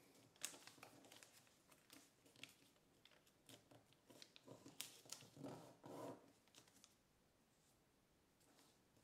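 Sheet of kraft paper faintly crinkling and crackling as it is folded and creased by hand: a run of small crackles that thickens about five seconds in and dies away near the end.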